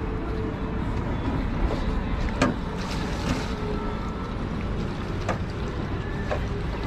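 Small fishing boat sitting on the water: a steady low rumble of wind and water noise, broken by a few sharp knocks and clicks of gear in the boat, the loudest about two and a half seconds in.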